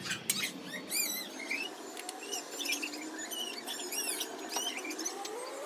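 Short, high-pitched squeaky chirps, repeated irregularly.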